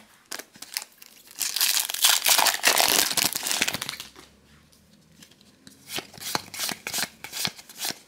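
Foil trading-card booster-pack wrapper crinkling loudly for about two seconds. After a short pause comes a run of short, sharp ticks as the next pack is torn open and handled.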